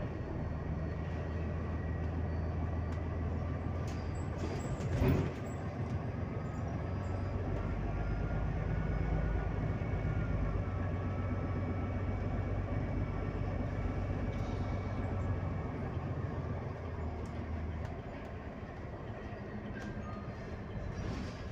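Cabin noise of a Solaris Urbino 18 IV Hybrid articulated bus under way: a steady low drone with a faint high whine over it. A single knock comes about five seconds in, and the drone eases a little near the end.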